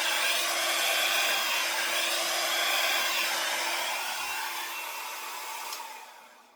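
Hair dryer blowing steadily on acrylic pour paint, then switched off near the end and winding down.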